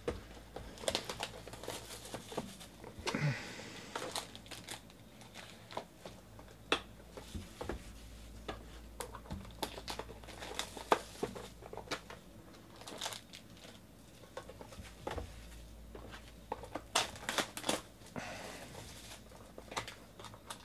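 Foil trading-card pack wrappers crinkling and tearing as packs are opened by hand, with irregular sharp crackles and small clicks.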